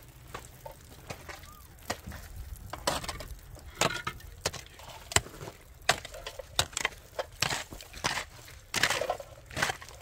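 Repeated blows of a long-handled hand tool, heard as sharp knocks and cracks at an uneven pace of about one a second, coming closer together near the end.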